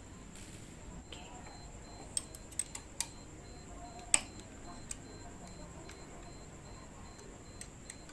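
A few scattered sharp metal clicks and clinks of hand tools and parts as a handlebar riser clamp is being fitted on a motorcycle, about six of them, the loudest a little over four seconds in.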